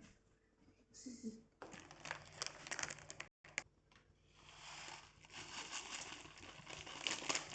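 Plastic food packaging crinkling and rustling as it is handled, in two stretches with a brief break between them.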